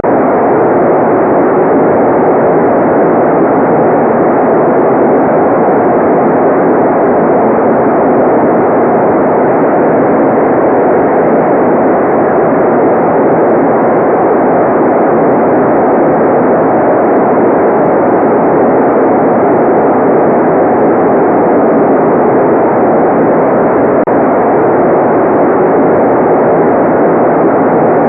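Steady white-noise relaxation track: an even, unchanging rush with no breaks, muffled, with nothing in the top end.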